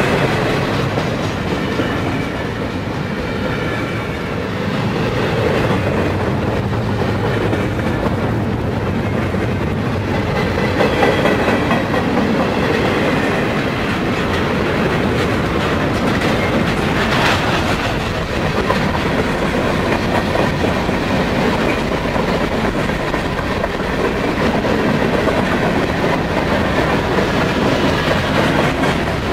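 Freight train cars rolling past at close range, double-stack container well cars and then covered hoppers: a steady rumble with the wheels clacking over the rails. There are faint high ringing tones in the first half and one brief sharp clank about two-thirds of the way through.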